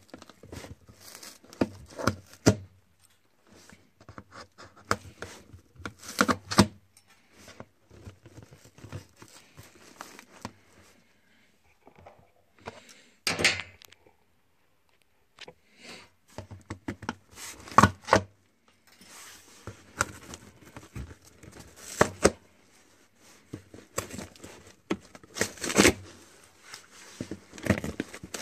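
A corrugated cardboard box being torn open by hand and with needle-nose pliers. Irregular scraping and ripping with several sharper, louder tears spread through the stretch and a short quiet pause about halfway.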